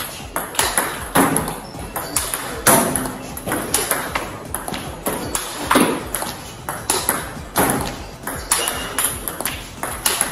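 Table tennis ball clicking off rubber-faced paddles and bouncing on the table, about two sharp hits a second, during serve-receive practice.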